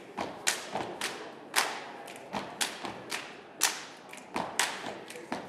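A step team stomping and clapping in unison: a syncopated rhythm of sharp hits, some stronger than others, roughly two a second.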